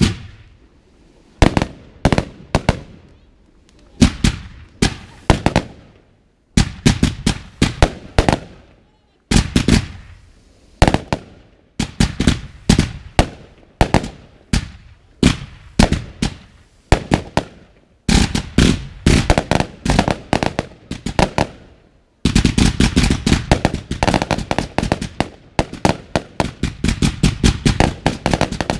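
Fireworks going off: sharp bangs from shots launched from the ground and bursting overhead, in quick clusters with short pauses. About two-thirds of the way through they speed up into a rapid, almost continuous volley of bangs.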